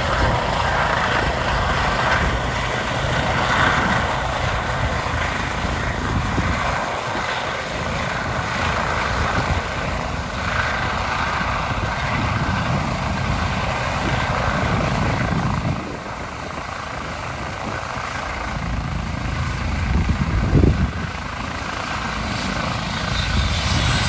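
Airbus EC135 twin-turbine rescue helicopter running at close range: steady rotor and engine noise with a faint high steady whine. The sound eases about two-thirds of the way through, then swells briefly louder near the end.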